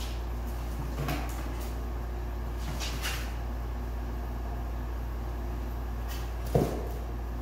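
Kittens playing at a cardboard box on a hard floor: a few short scratches and light knocks of paws against the cardboard, then one louder thump near the end, over a steady low hum.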